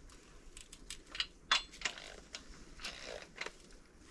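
Wrench and socket on the N55's bedplate bolts, with about ten sharp, irregularly spaced metallic clicks as the bolts are run down to the 20 N·m initial torque.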